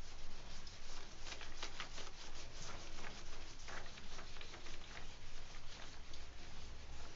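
Marker writing being wiped off a whiteboard: a rapid, irregular run of short rubbing scuffs.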